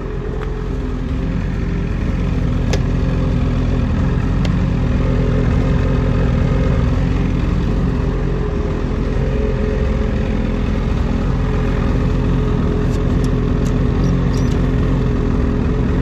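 2021 Ski-Doo 850 Turbo's two-stroke twin running steadily, spinning the track so its alignment can be checked.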